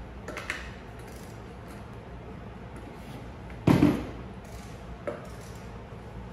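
Plastic double-diaphragm pump air-chamber assembly tipped onto its side and set down on a table with one loud clunk about three and a half seconds in, with a few light clicks of parts being handled around it.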